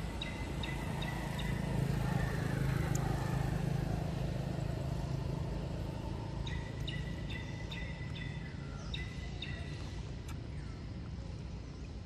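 Outdoor ambience: a passing vehicle's low rumble swells over the first few seconds and then fades. A bird repeats a short, high chirp about three times a second, in a brief run at the start and a longer run from about six to nine and a half seconds in.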